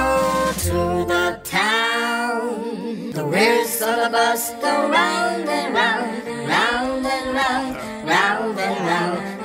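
Music: a singing voice, nearly unaccompanied, with held and sliding notes.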